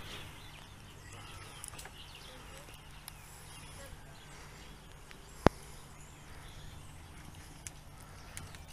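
Quiet outdoor ambience: a low steady hum with faint bird chirps, and one sharp click about halfway through.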